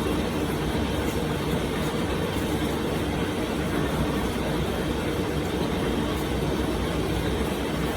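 Machinery running steadily: a loud, even mechanical drone with a low hum underneath.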